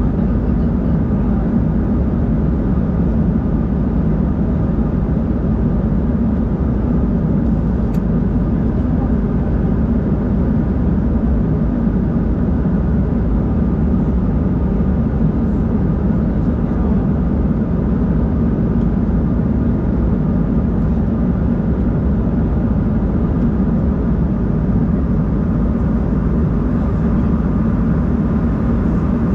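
Steady, loud cabin noise inside an Embraer 190-E2 airliner: its Pratt & Whitney PW1900G geared turbofans and the airflow make a deep, even rumble with a few faint higher hums over it.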